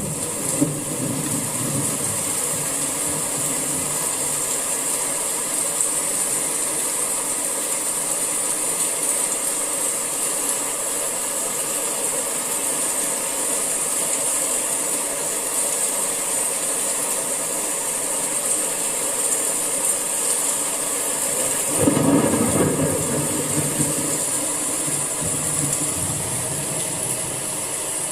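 Summer rain falling steadily, an even hiss. About 22 seconds in, a louder, deeper rush swells for a couple of seconds and fades back.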